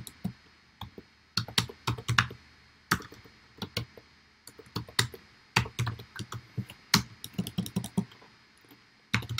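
Typing on a computer keyboard: irregular bursts of key clicks with short pauses between them.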